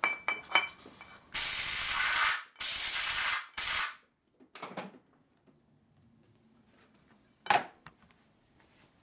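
Compressed-air blow gun hissing in three blasts, two of about a second and a short third, blowing reaming chips off the freshly hand-reamed cam bearing bore of a Harley Evo cam cover. A single knock near the end.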